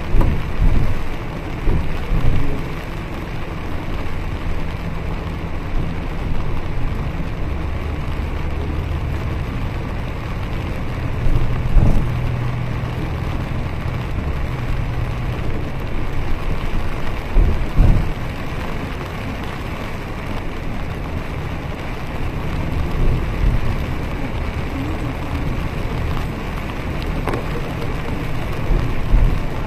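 Interior of a bus driving in heavy rain: the engine's low hum and steady road noise mixed with rain on the roof and windows. A few heavy thumps come through, the loudest about twelve and eighteen seconds in.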